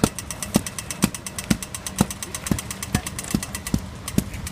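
Mallet striking a cast-in-place tactile ground indicator plate, bedding it into wet concrete: sharp, even knocks about two a second.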